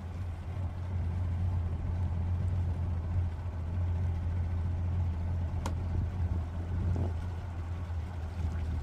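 Boat's engine ticking over at low revs, a steady low rumble that picks up slightly about a second in as the boat is eased slowly into a berth.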